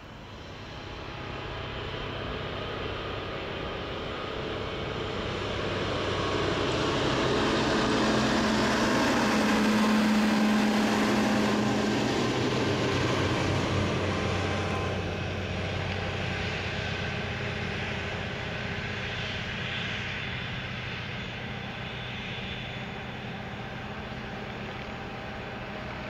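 Boeing 777 freighter's twin GE90 turbofan engines running as the jet moves along the runway at night: a steady jet rumble with a low hum and a whine. It swells to its loudest about ten seconds in, then eases off and holds steady.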